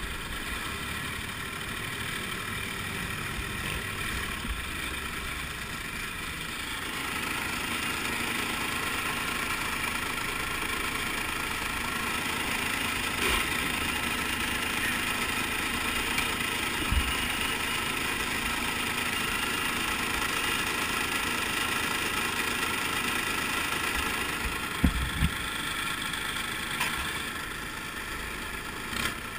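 Diesel garden tractor engine running steadily at low speed, picking up a little about a quarter of the way in, with a couple of brief knocks later on.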